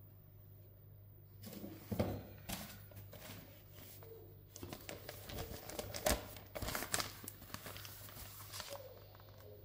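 Sheets of newspaper being handled, rustling and crinkling in irregular bursts, over a steady low hum.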